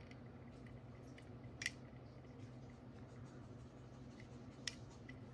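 Quiet room hum with a few faint, sharp clicks of small objects being handled; the clearest come about a second and a half in and near the end.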